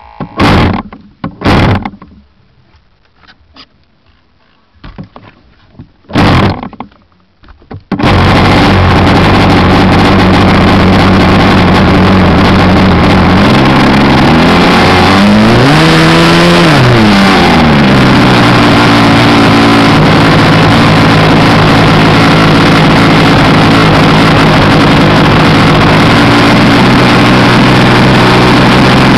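Model airplane engine on the Cessna Skylane 40 RC plane: a few short bursts as it is started, then it catches about eight seconds in and runs steadily, very loud close to the camera. Around the middle the throttle is opened, the pitch rising and then dropping back to a steady run.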